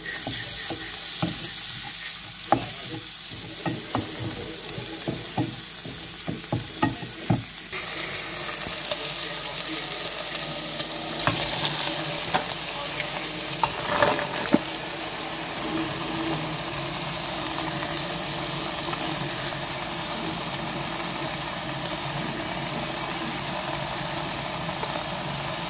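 Potatoes frying in oil in a nonstick pan, sizzling, with a spatula stirring and knocking against the pan in quick clicks for the first eight seconds or so. After that the sizzle is louder and steady, with a few more knocks.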